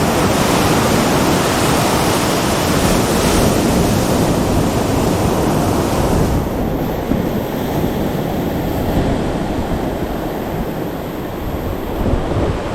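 Ocean surf washing on the beach, with wind buffeting the microphone as a low rumble; the higher hiss thins out about six seconds in.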